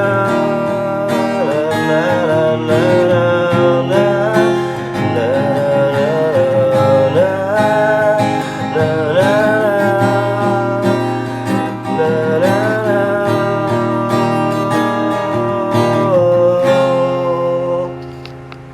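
Strummed acoustic guitar with a wordless "na na" vocal melody over it, ending a pop song; the last note is held and the music dies away near the end.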